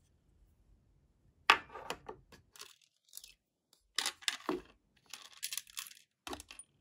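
Metal rings and small items handled and set down in a clear acrylic tray: a sharp click about a second and a half in, then clusters of taps and clicks with some rubbing and rustling.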